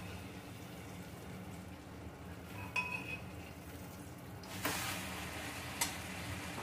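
Mutton curry cooking in a metal kadai: a metal spatula clinks once against the pan with a short ring about a third of the way in. Then, a little past halfway, scraping and sizzling start as the meat is stirred through the masala, with another sharp clink near the end, over a steady low hum.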